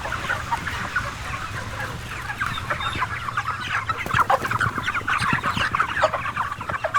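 A large crowded flock of broiler chickens calling, a dense chorus of short overlapping clucks and chirps that grows thicker midway, over a steady low hum.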